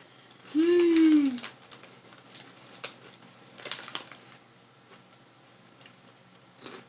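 A short hummed "mmm" falling in pitch, then crisp crunching of chips being chewed, with a few sharp crackles of the chip bag.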